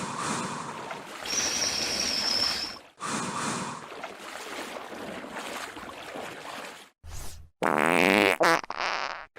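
Edited cartoon sound effects: a few hard-cut stretches of hissing, rushing noise, then a short low thump and a loud wobbling, buzzy comic tone near the end.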